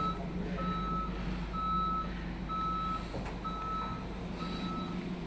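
Articulated lorry's reversing alarm beeping steadily, one single-tone beep about every second, over the low hum of the lorry's engine running.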